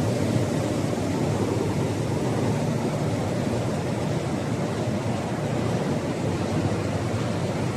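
Steady rumbling noise of recycling-plant machinery running, even in level without distinct strokes or rhythm.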